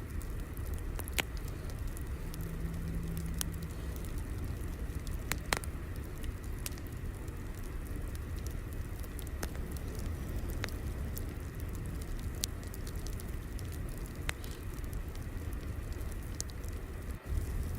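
Wood fire crackling: a steady low rumble with scattered sharp pops and snaps at irregular moments.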